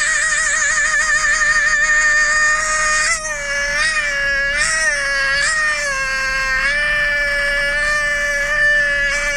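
A man holding one long, loud, high falsetto wail with vibrato and no words, sliding up and down in pitch a few times in the middle before settling back on the note.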